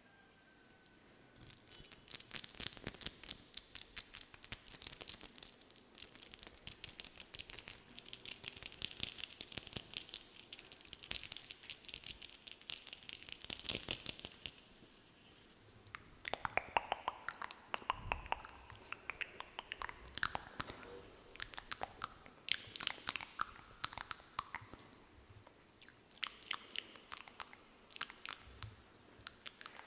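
Close-miked ASMR trigger sounds: dense, crisp clicking and crackling, bright and hissy at first, turning to sparser, lower clicks about halfway through.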